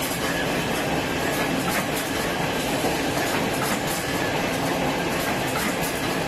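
Automatic wet wipe packaging line running: a steady, dense mechanical clatter of many rapid small clicks.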